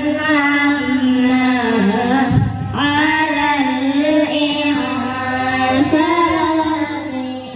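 A song with a sung melody over accompaniment. There is a short break between phrases about two and a half seconds in, and the music fades out near the end.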